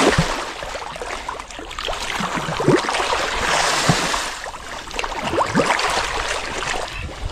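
Water splashing and sloshing around a small boat, with scattered plops and knocks.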